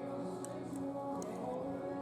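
Background music playing, with a few faint short clicks.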